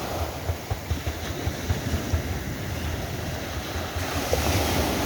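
Ocean waves breaking and washing up a sandy beach, with wind buffeting the microphone. The surf grows louder about four seconds in.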